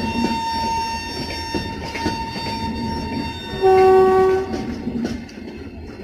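A WAP7 electric locomotive's horn honking as its train of coaches rolls past: one held horn tone for the first three and a half seconds, then a louder, lower blast lasting nearly a second. Under it the coaches' wheels rumble and clatter over the rail joints, clearer near the end once the horn stops.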